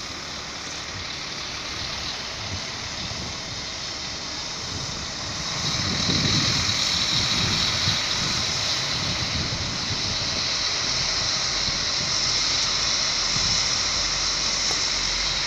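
A train rolling through the station: a steady noise of wheels on rails with a high hiss, growing louder about six seconds in.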